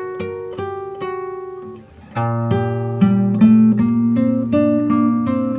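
Background music on acoustic guitar: single plucked notes, then a louder, fuller passage with sustained low notes from about two seconds in.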